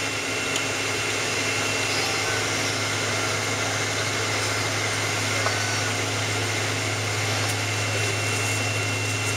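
Steady cabin drone inside a Boeing 777-200ER taxiing after landing: a constant low hum with a faint steady high whine over it, from the engines at taxi power and the cabin air.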